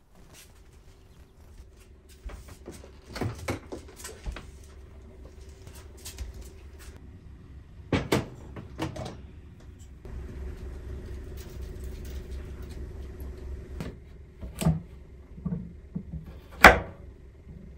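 Kitchen handling sounds: scattered clicks and knocks as items on the counter are set down and moved, over a steady low hum. Near the end a knife cuts through kabocha squash and strikes a wooden cutting board with one sharp knock, the loudest sound.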